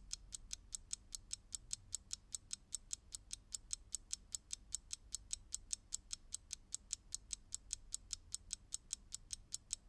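Clock-ticking sound effect: fast, even ticks, about five a second, that cut off suddenly near the end.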